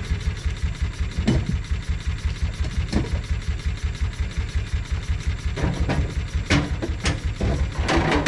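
Mule utility vehicle's engine running with a steady low pulsing, with a few sharp knocks and a cluster of rattles and clanks in the last few seconds.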